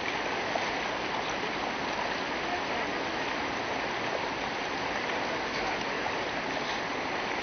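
Steady rushing, splashing water.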